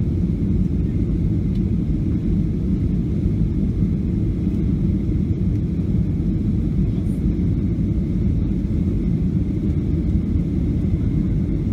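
Steady low roar inside the cabin of a Boeing 737-700 in flight, from airflow and its CFM56-7B engines, with a faint steady high whine above it.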